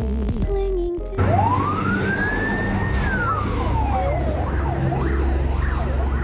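Fire engine siren: one long wail rising and then falling, switching after about four seconds to a rapid up-and-down yelp, over a steady low rumble of traffic. Background music plays for the first second and cuts off abruptly.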